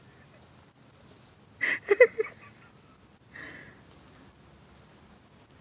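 Crickets chirping in a steady, fast pulsing rhythm, with a short loud voice-like sound about two seconds in.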